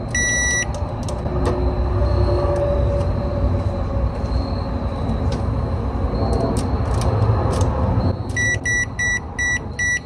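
Microwave oven's control-board piezo buzzer gives one short high-pitched beep. The oven then runs with a steady low hum for several seconds, which cuts off, and the buzzer sounds a rapid run of about six short beeps near the end.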